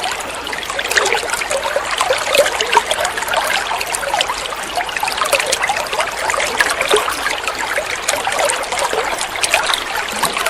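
Running water flowing steadily, with many small, quick gurgles through it.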